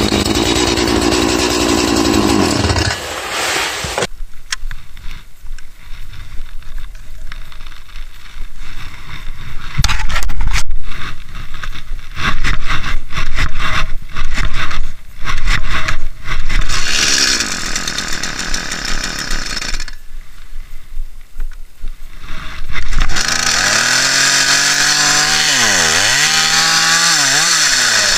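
Stihl MS 180 two-stroke chainsaw running, with loud, uneven stretches of full throttle through the middle as it cuts wood. Near the end it is revved up and down several times.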